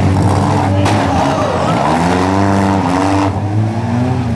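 Four-cylinder compact demolition derby cars' engines revving up and down, with a sharp bang of a hit about a second in.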